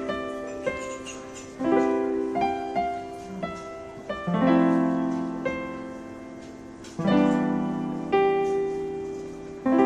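Gentle background piano music: soft chords struck about every two and a half seconds, each ringing on and fading, with a few lighter notes between.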